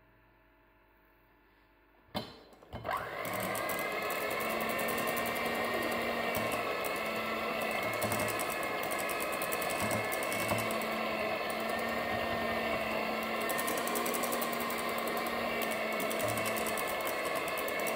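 Moulinex electric hand mixer switched on about two seconds in, spinning up and then running steadily as its beaters whip butter into a custard-based butter cream.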